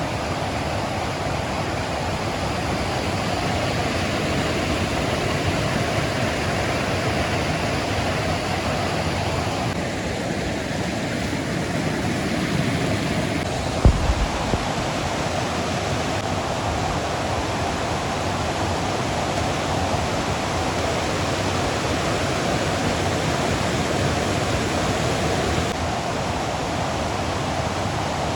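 Steady rush of falling water from a mountain waterfall, with one brief low thump about halfway through.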